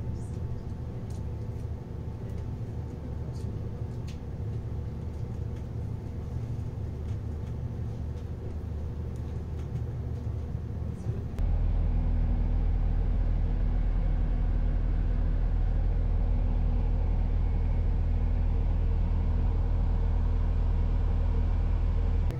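Steady low rumble of an Irish Rail intercity train running at speed, heard from inside the carriage, with faint scattered ticks in the first half. About halfway through the sound changes abruptly to a louder, deeper rumble.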